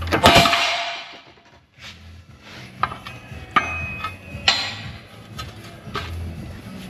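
A worn rubber wishbone bush being pressed out of a steel front wishbone lets go with a loud metallic bang that rings briefly, just after the start. Lighter metallic clicks and clinks follow as the parts settle and are handled.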